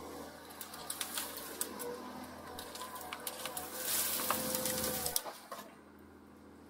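Hyundai R220LC-9A excavator's diesel engine and hydraulics working under load, heard from inside the cab, with a hydraulic whine. Sharp crackling and snapping come through as the rake bucket's tines tear a bush's roots out of the ground. The working sound drops off suddenly a little after five seconds in.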